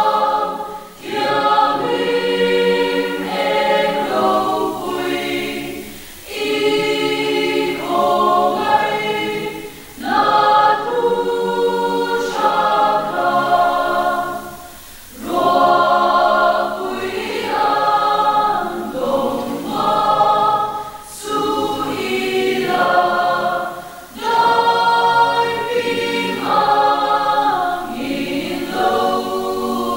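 A mixed choir of women's and men's voices singing a hymn together, in sung phrases with short breaks between them.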